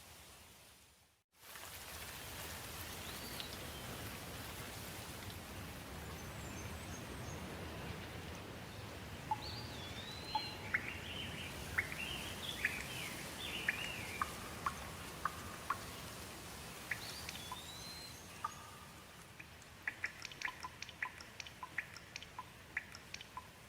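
Steady rain hiss with birds chirping over it, some calls sweeping up and down. The sound drops out briefly about a second in, and near the end comes a quick run of sharp ticks.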